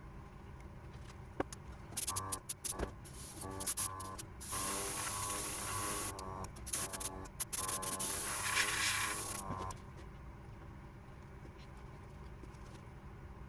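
Airbrush spraying spirit stain: a few short hissing spurts about two seconds in, then longer sprays that stop abruptly near ten seconds in. The small airbrush compressor hums steadily underneath.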